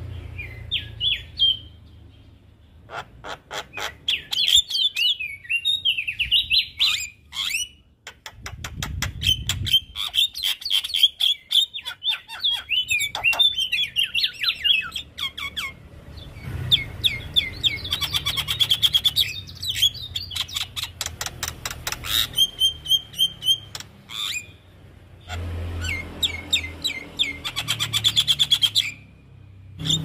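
Javan myna (jalak kebo) singing in full voice: fast runs of sharp clicks and rattling chatter mixed with high whistled notes. It sings in bursts of a few seconds, with short pauses between them.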